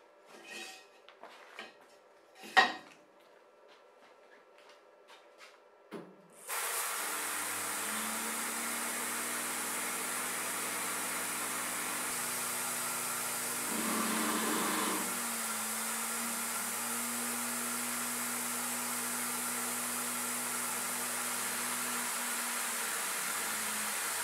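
A few clicks and one sharp knock from handling the clamped steel beam. Then, about six and a half seconds in, the EMCO F1-CNC mill's spindle motor starts and runs steadily with a hum and a hiss. About fourteen seconds in the sound grows louder for about a second, then settles back.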